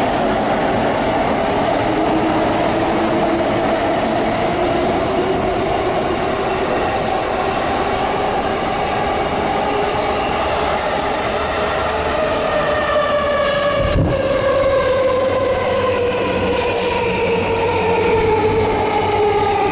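Electric commuter train pulling into the platform, its motor whine falling slowly in pitch as it brakes, over a steady rumble. There is a single low thump about fourteen seconds in.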